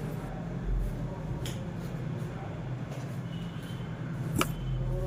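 A steady low hum, with a faint sharp click about one and a half seconds in and a loud sharp click near the end.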